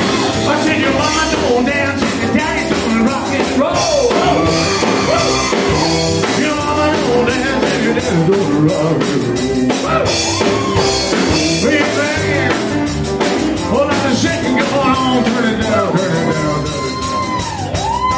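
Live rock and roll band with drums and keyboard backing a male singer; near the end he holds a long note.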